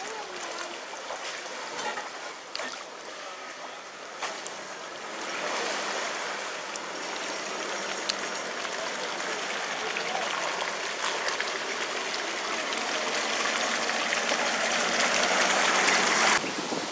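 Muddy water sloshing and rushing around the tyres of a Land Rover Discovery 2 as it drives through a water-filled rut, growing louder as the vehicle nears, then cutting off suddenly near the end.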